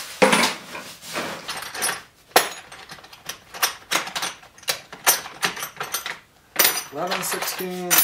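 Small hard parts clinking and clattering in an irregular run of sharp clicks as they are rummaged through in a plastic parts organizer.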